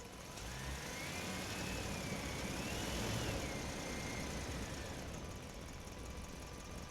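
An engine whine over a steady hiss. It swells and fades over a few seconds, its pitch rising, wavering and falling back down.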